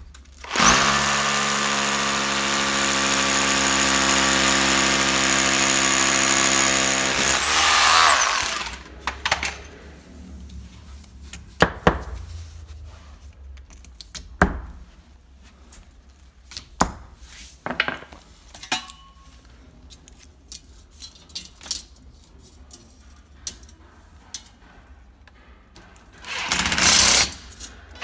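Power drill with a masonry bit boring into a block wall, running steadily for about seven seconds and then winding down. Light knocks and scrapes of the hole being brushed clean and fixings handled follow. Near the end comes a short loud burst of a cordless impact driver driving a screw through a metal wall starter channel into the block.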